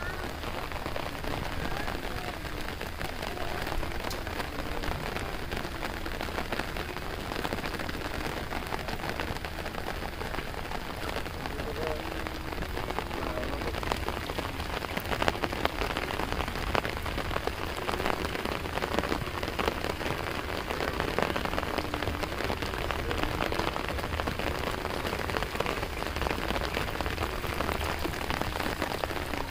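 Steady rain falling on the flooded rice paddy's water.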